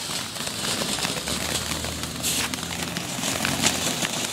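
Ground fountain firework spraying sparks: a steady hiss that swells and fades, with scattered crackles.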